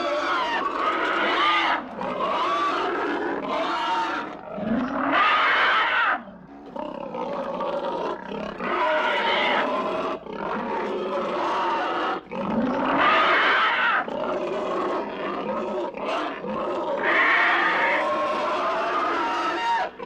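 Horror-film monster sound effect: a creature roaring and growling in long, drawn-out calls that bend in pitch, with brief breaks about six and twelve seconds in.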